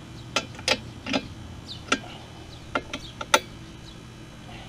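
About seven sharp, irregular clicks and taps of tools and parts being handled during a small-engine tune-up, over a steady low hum with faint bird chirps in the background.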